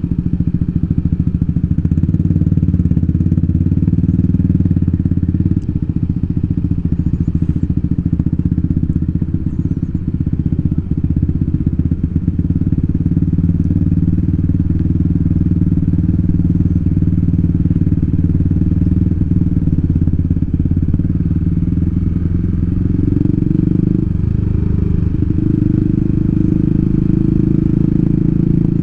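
Yamaha scooter engine running steadily at cruising speed, heard from the rider's seat, with a brief shift in pitch about three quarters of the way through.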